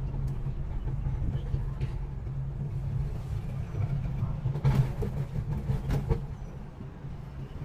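Cable car cabin travelling along its cable with a steady low rumble. A quick run of clunks and rattles comes about five seconds in as the cabin passes over a support tower's pulley wheels.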